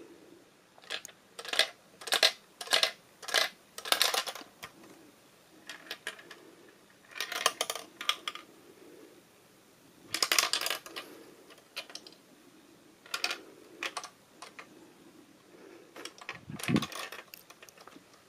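Small plastic ball rolling and clattering against the LEGO bricks of a hand-tilted marble maze, in short bursts of sharp clicks separated by quiet pauses as it stops and starts. Near the end there is a duller, deeper knock.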